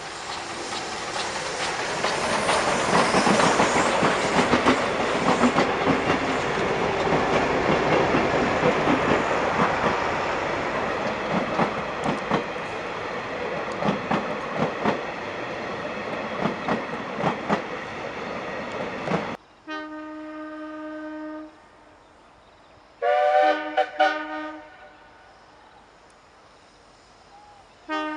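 South African Railways class 19D steam locomotive passing close with its train: a loud rush of exhaust and running gear building over the first few seconds, then the coaches' wheels clicking over rail joints. About nineteen seconds in the sound changes abruptly to the locomotive's steam whistle: a short blast, a longer blast a few seconds later, and two short toots at the end.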